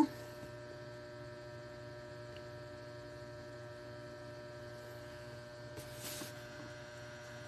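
Steady low electrical hum with several faint constant tones, and a brief rustling noise about six seconds in.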